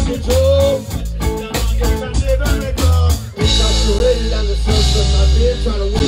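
Live rock band with electric guitars, bass and drum kit playing a choppy reggae-rock groove, then breaking into a fuller, heavier section with washing cymbals about three and a half seconds in.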